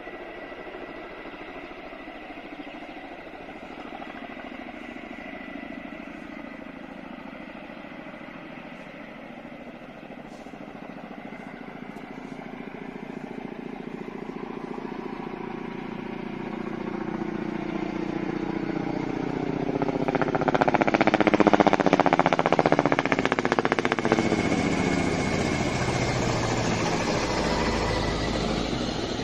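Helicopter flying with a water bucket slung beneath it, its rotor and engine growing steadily louder as it approaches. It is loudest about 21 seconds in, with the tone sweeping as it passes overhead, then stays loud as it moves on.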